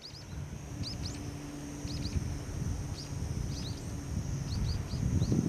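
Small birds chirping in quick clusters of two or three short upward notes, over a steady low rumble and a steady high-pitched drone. The sound fades in at the start.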